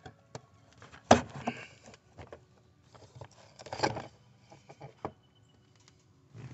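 A thin metal pry tool knocking and scraping against the cut sheet-metal floor panel as a freshly cut square flap is pried up to bend it open. There is a sharp clank about a second in, a cluster of knocks and scraping near the middle, and lighter taps in between.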